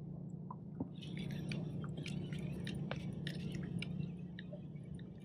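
Fishing reel being worked on a kayak rod, giving light, irregular clicking and ticking over a steady low hum.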